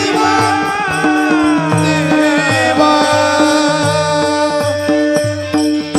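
Kirtan devotional music: a singer's long wavering line falling in pitch in the first half, over a steady harmonium chord and regular mridang drum strokes.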